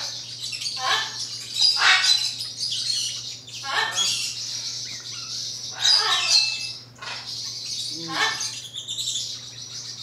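Pet parrot giving about five short squawks and chirps, one every second or two, over a steady low hum.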